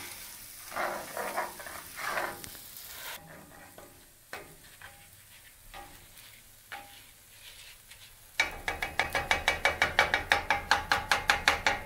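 A spoon stirs and scrapes arborio rice and onions toasting in butter in a cast iron skillet. There is a light sizzle for the first few seconds, then scattered soft scrapes. Near the end come quick, even scraping strokes, about four a second, which are the loudest sound.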